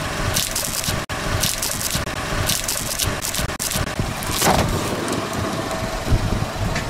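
Car engine running as the tyre rolls onto a Chupa Chups lollipop, with a series of short crackling crunches from the wrapper and hard candy pressed under the wheel over the first four or five seconds.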